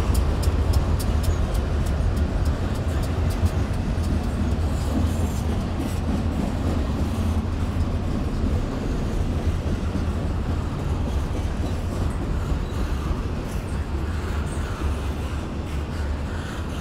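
BNSF intermodal freight train's double-stack container cars rolling across a long trestle bridge, a steady low rumble. A rapid run of wheel clicks over the rail joints fades out in the first few seconds, and the rumble slowly eases.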